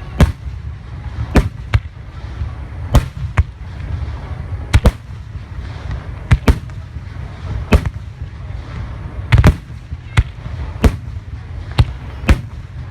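Aerial fireworks shells bursting: a sharp bang about every second, often two in quick succession, over a steady low rumble.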